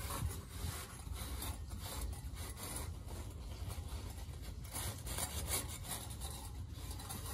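A damp paper towel rubbed and wiped back and forth over the sheet-metal top of an air handler's evaporator coil plenums, an irregular rasping scrape over a low steady hum.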